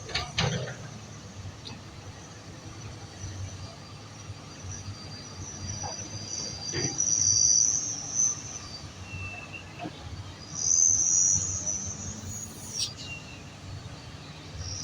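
Insects buzzing in a high, steady drone that swells loud twice, about seven and eleven seconds in, over a low, steady engine rumble from heavy machinery.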